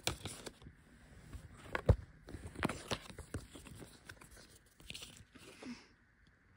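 Close handling noise of a cardboard collectible hang tag being turned over and moved in the fingers: scattered rustles, scrapes and sharp clicks, the loudest about two seconds in.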